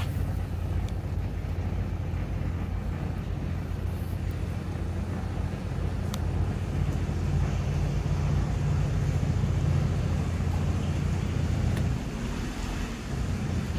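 Narrowboat's diesel engine running steadily under way: a low rumble with a brief dip near the end, heard inside a brick canal tunnel.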